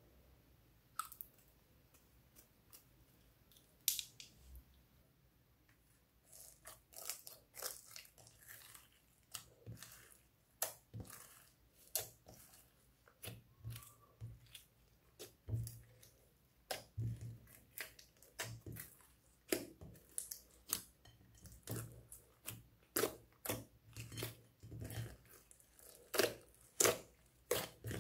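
Slime loaded with glitter, sequins and beads being folded and kneaded by hand: a quick, uneven run of sticky clicks, pops and squelches from about six seconds in, after a few scattered clicks before that.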